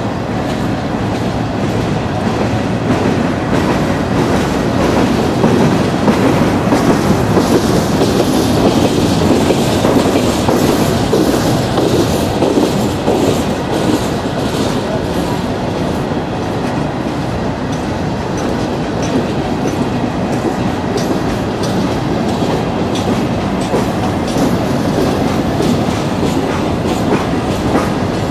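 CSX coal hopper cars rolling past on steel rails: a steady rumble of wheels on track with rapid clicking as the wheels cross rail joints.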